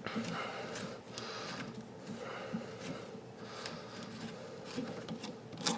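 Plastic dishwasher air gap nut being unscrewed by hand, its threads rasping in short strokes about a second apart, with a sharp click near the end.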